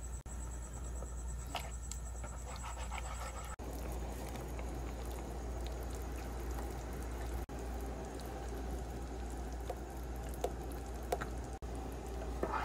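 Pan-cooking sounds: cream being poured into a simmering sausage sauce, with liquid bubbling and a few sharp clicks of a utensil against the pan near the end, over a steady low hum.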